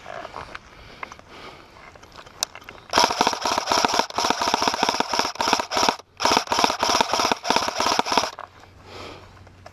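Airsoft rifle firing on full auto close to the microphone: two long bursts of rapid shots, about three seconds and two seconds long, with a brief pause between them.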